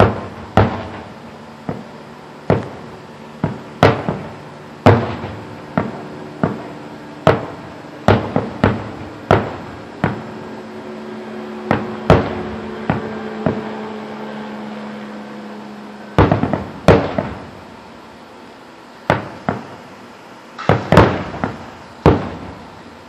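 Aerial firework shells bursting overhead: a string of sharp bangs at irregular intervals, about one a second, each with an echoing tail, and a quick cluster of several bangs near the end.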